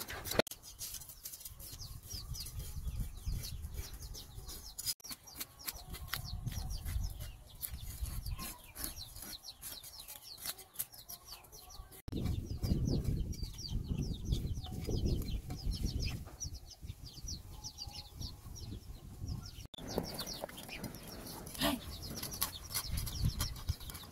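Knife blade scraping the scales off a whole fish on a wooden log, in quick repeated strokes.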